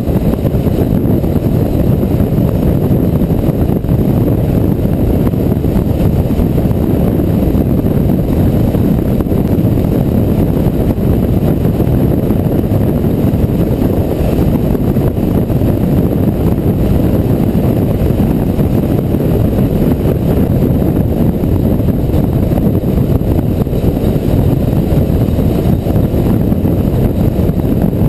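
Motorcycle riding at steady road speed: a loud, even rush of wind on the microphone over the engine and tyre noise, with no change in pace.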